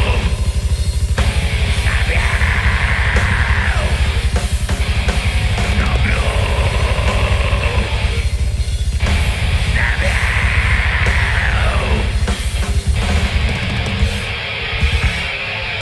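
Death metal band playing live: distorted guitars over fast, dense drumming, with high sounds sliding down in pitch every few seconds.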